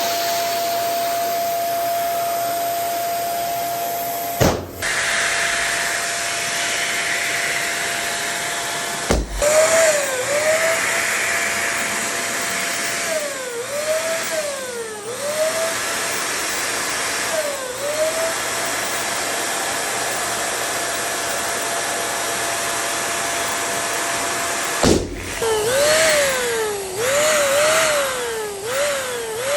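Small electric air pump or blower running with a steady hum and rush of air, its pitch dipping and recovering again and again as it strains. Three sharp bangs, about four, nine and twenty-five seconds in, fit balloons popping.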